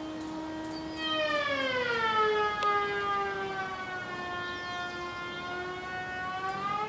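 Woodworking power tool in a carpentry shop whining with many overtones, steady at first. About a second in its pitch drops and stays low as the tool comes under load, then climbs back near the end as the load eases.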